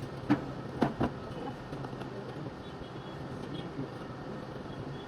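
Three sharp knocks in the first second, over a steady background rumble.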